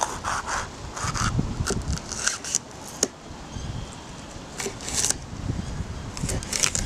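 Kitchen knife slicing crisp green bell pepper on a wooden cutting board: quick crunchy cuts in irregular clusters, with a sharp knock of the blade on the board about three seconds in.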